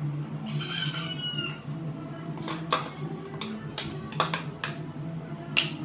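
Metal ladle clinking against a metal cooking pot of chicken and mushrooms, a string of sharp knocks in the second half, the loudest near the end. About a second in, a short high animal call, like a meow, falls slightly in pitch, over a steady low hum.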